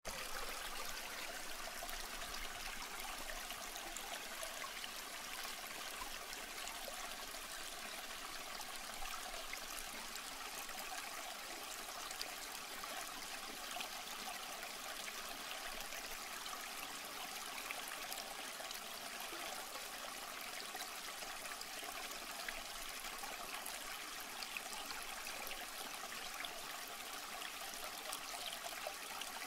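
A steady, even hiss that does not change, with no distinct events in it.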